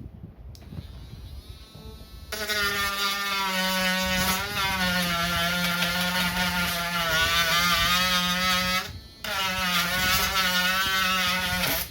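Small Dremel-style rotary tool with a sandpaper tip, running while sanding down a plastic laptop palmrest. It makes a buzzing whine whose pitch wavers a little. It starts about two seconds in, cuts out briefly near nine seconds, then starts again.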